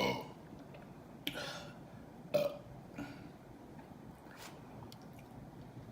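A woman burping, brought on by gulping carbonated soda: one burp dies away just after the start, then a few shorter burps follow, the sharpest about two and a half seconds in.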